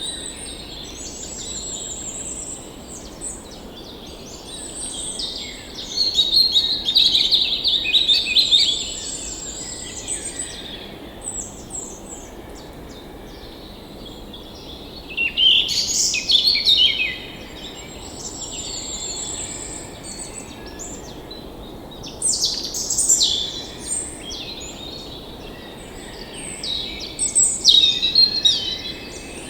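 Several songbirds chirping and singing, with louder bursts of calls every several seconds and some high trilling notes, over a steady low rushing hiss of flowing water.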